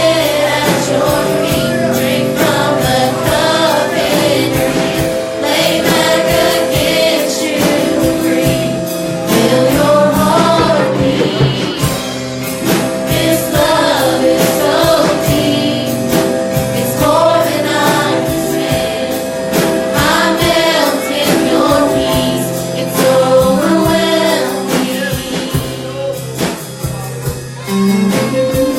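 Live gospel worship song: voices singing over a band with a steady beat.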